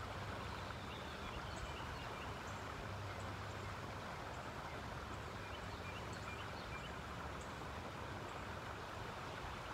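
Steady outdoor ambience: an even rush of flowing river water, with a few faint bird chirps.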